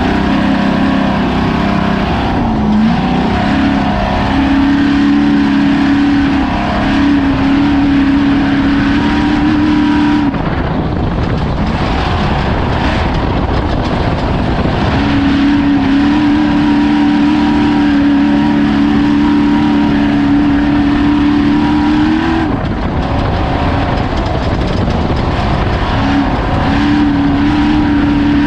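An off-road race vehicle's engine running hard at steady high revs over a dense rushing, rattling noise. The engine note dips briefly about two and a half seconds in. It falls away for about five seconds from around ten seconds in, then picks up again. It drops once more a little after twenty-two seconds and returns near the end.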